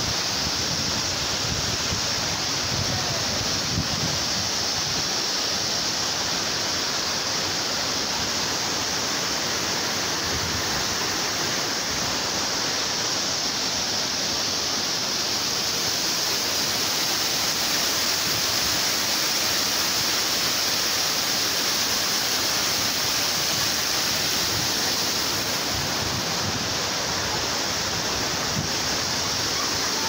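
Steady rushing of water pouring over a rocky cascade, a continuous even roar with no break.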